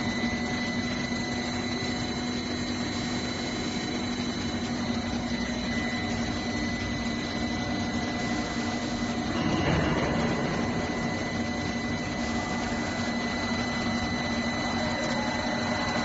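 Twin-screw PVC corrugated pipe production line running: a steady mechanical drone with a low hum and a thin high whine. A brief louder rush comes about two-thirds of the way through.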